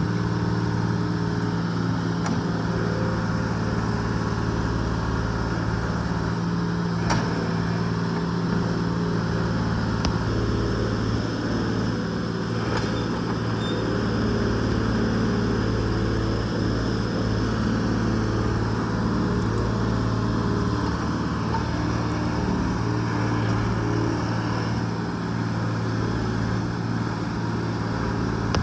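Excavator's diesel engine running steadily while the machine digs out tree stumps, with a couple of faint knocks.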